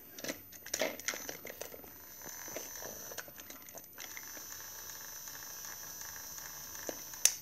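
Faint clicks and rattles of a plastic toy train engine being handled, then a small toy-train motor whirring steadily for about three seconds, stopping with a click near the end.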